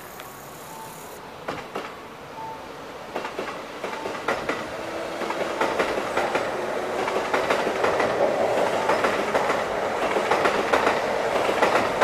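Kintetsu electric limited express train running through the station: its wheels clack over the rail joints, faster and louder as it comes closer, over a building rumble and a steady hum from the train. A short beep repeats about every second and a half in the first few seconds.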